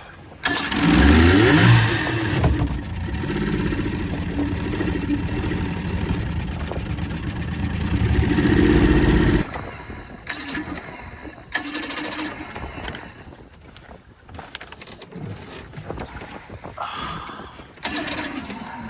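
Outboard motor starting up and rising in pitch, running for about nine seconds, then cutting out abruptly. It is a stalled motor that had been partly submerged, briefly catching and dying again. Scattered knocks and wind follow.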